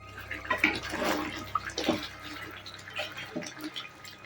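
Water running and splashing, with irregular small splashes and clicks.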